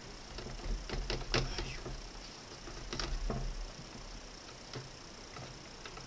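Bare hands scrubbing the blades of a greasy plastic kitchen ventilation fan in a stainless-steel sink: short rubbing, clicking and knocking sounds, busiest about a second in and again around three seconds.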